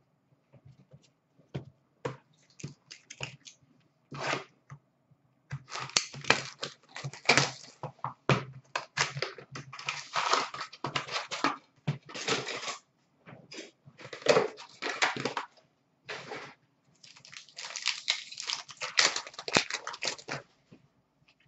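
Hockey card packs being torn open and handled: irregular crinkling and tearing of the pack wrappers, with cards shuffled between the tears.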